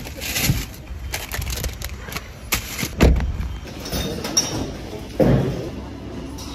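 Knocks and thuds of a car being loaded and its door shut, the loudest thud about three seconds in, then footsteps on a tiled floor.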